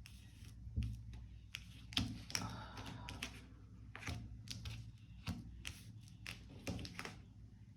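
Irregular light taps and clicks, a few a second, over a steady low room hum.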